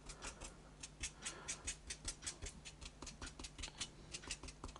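Paintbrush bristles dabbing and scrubbing on embossed foam-board cobblestones, a faint run of short scratchy strokes about four or five a second, as paint is worked on sparingly to mottle the stones.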